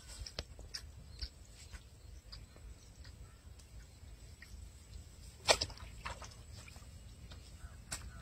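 Faint scattered rustles and small clicks of hands working in grass and handling a caught fish and bucket, with one sharp knock or slap about five and a half seconds in, over a low wind rumble.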